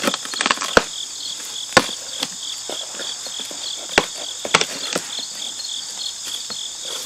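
Cardboard shipping box being opened by hand: flaps pulled back and folded, giving several sharp cracks and knocks, the loudest about two and four seconds in. Crickets chirp steadily underneath.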